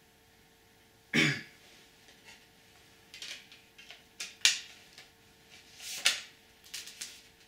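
CD jewel case and booklet being handled: scattered sharp plastic clicks and paper rustles, the sharpest about halfway through and about six seconds in. A short cough-like sound about a second in is the loudest thing.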